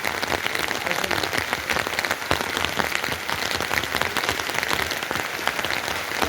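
Heavy rain falling steadily: a dense, even hiss of drops with many sharp individual drop hits.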